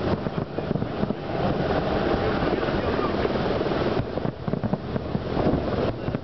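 Large fireworks barrage: many firework shells bursting in rapid, overlapping succession, a dense rumble of bangs and crackle that thins briefly about four seconds in.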